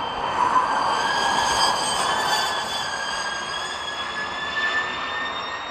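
Hyundai Veloster N ETCR electric race car driving past on the track: the high-pitched whine of its mid-mounted electric motor, rising slowly in pitch as it speeds up, over tyre and road noise. It is loudest about a second in and eases off as the car pulls away.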